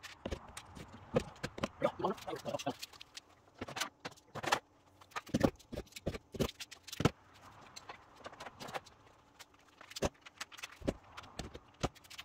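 Steel F-style bar clamps and trigger clamps clacking and knocking against a wooden rack and against each other as they are slotted in one after another: irregular sharp knocks and rattles with short pauses between.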